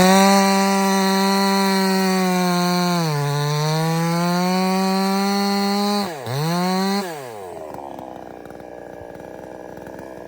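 Gasoline chainsaw screaming at full throttle just out of the cut, its pitch dipping briefly about three seconds in and recovering. The throttle is let off and blipped once around six seconds, then released about seven seconds in, and the saw falls away to a much quieter running.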